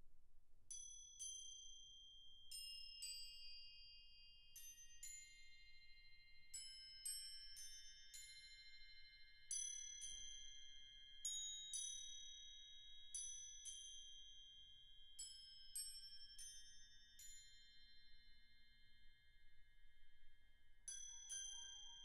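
Soft, slow mallet-percussion notes struck one at a time, a second or so apart, each high note ringing on and overlapping the next like bells. About 21 seconds in, a second part with lower notes joins.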